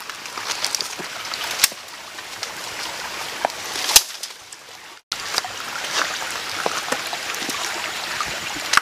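Shallow forest stream trickling over rocks, with scattered sharp clicks and knocks of footsteps on stones and leaf litter. The sound drops out for an instant about five seconds in.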